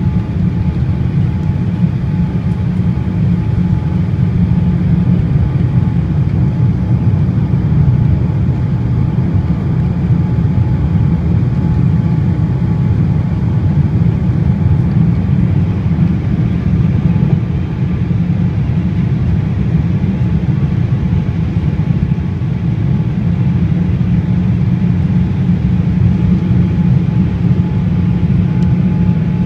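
Cabin noise inside a Boeing 787-8 airliner on final approach: a steady low rumble of the engines and the airflow over the wing with its flaps extended, with a faint steady tone above it.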